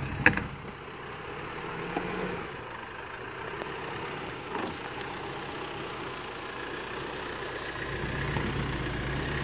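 Nissan Navara D40's 2.5-litre YD25DDTi four-cylinder turbo-diesel running at low revs as the pickup crawls over rocks. A sharp knock comes about a quarter second in, with a couple of fainter knocks later, and the sound grows a little louder near the end.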